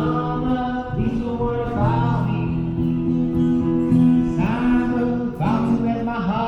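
A song: a voice singing held notes over guitar accompaniment.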